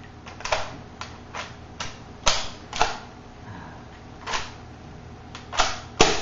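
Sharp plastic clicks and clacks of a modified Nerf Raider pump-action blaster being worked by hand to clear a double-fed dart, with the dart clip pulled out and set on the table. About ten separate clacks come at an uneven pace; the loudest fall a little past two seconds in, near three seconds, and just before the end.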